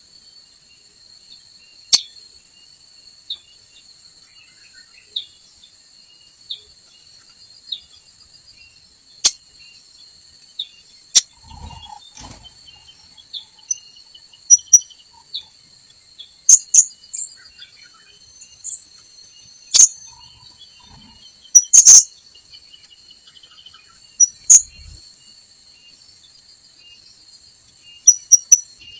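Blue-crowned hanging parrot (srindit) calling in short, sharp, high-pitched chirps at irregular intervals, more often in the second half, over a steady high insect drone. A couple of faint low bumps are heard, around the middle and again later.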